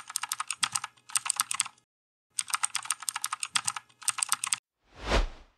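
Keyboard-typing sound effect laid over text being typed out on screen: rapid key clicks in several runs with short pauses between them. Near the end comes a single whoosh that swells and fades.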